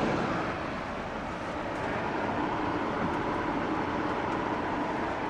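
Steady whooshing hum of running fans, even and unbroken, dipping slightly about a second in.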